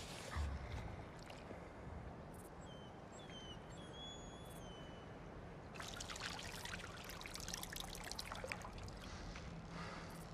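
Water wrung from a soaked cloth trickling and splashing into a stone bowl. It starts about six seconds in and lasts about three seconds.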